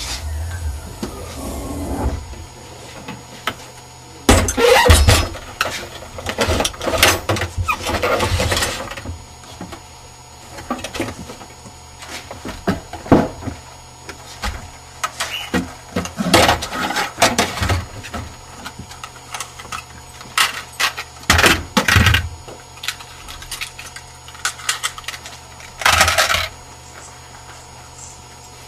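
Gear being loaded into a car's boot: irregular knocks, thumps and metallic rattles in several bunches, the busiest a few seconds in, with quieter stretches between.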